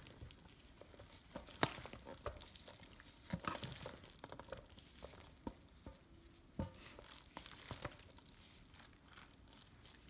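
Wooden spatula stirring mayonnaise-dressed rotini pasta salad in a stainless steel bowl: wet squishing and scraping, with a few sharp knocks of the spatula against the bowl.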